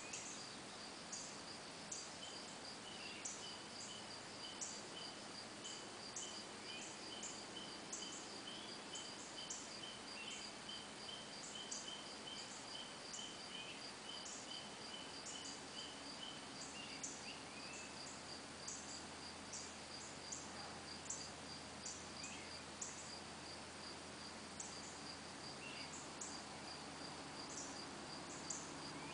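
Crickets and other insects chirping at dusk: a steady, even pulsing trill with irregular higher chirps scattered over it, and a rapid string of lower pulses for about the first half. A faint low rumble grows in the second half.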